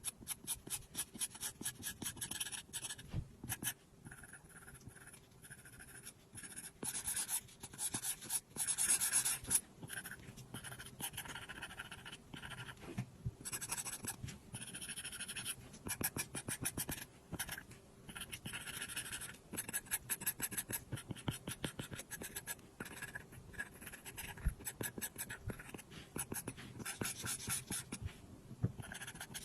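Apple Pencil tip tapping and scratching across an iPad's glass screen in quick drawing strokes, a dense run of small clicks and scrapes with busier patches of fast strokes.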